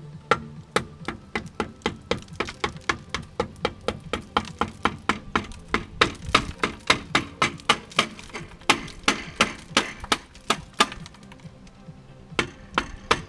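Steady hammer blows on the bare metal wheel hub of a Subaru Forester, about three sharp strikes a second. They stop briefly near the end, then a few more follow.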